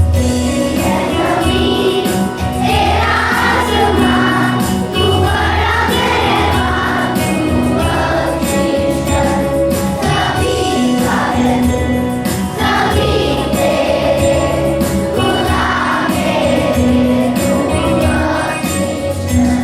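Morning prayer song: a group of voices singing together over instrumental accompaniment.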